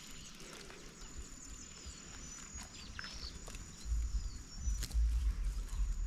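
Quiet outdoor ambience: a thin, steady high whine that stops and starts, a few short bird chirps and light clicks, and low rumbling noise from about four seconds in.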